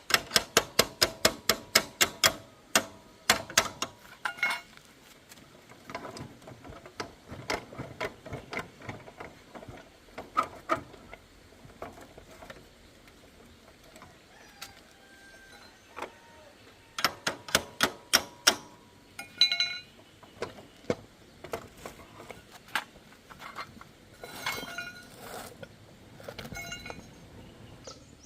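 Metal hand tools working on a motorbike wheel: a run of sharp, ringing metallic clicks, about four or five a second for the first few seconds. A second short run comes about two-thirds of the way through, with scattered lighter taps and knocks between.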